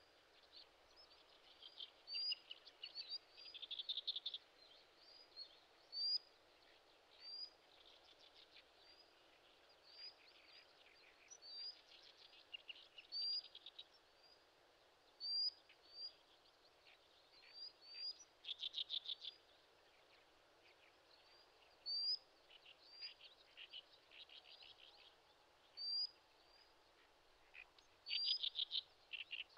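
Birds calling: a short, sharp rising note repeated every second or two, mixed with bursts of rapid trilling.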